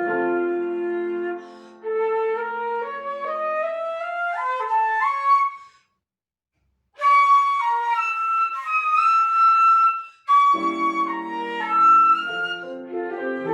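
Flute and piano playing a classical piece: a rising run of flute notes over sustained piano chords, about a second of silence near the middle, then high held flute notes with the piano chords coming back in.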